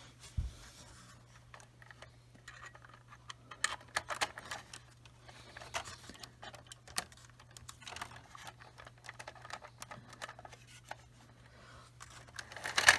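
Small plastic clicks and taps of model train cars being handled and set onto the track rails, irregular throughout, with a louder clatter near the end.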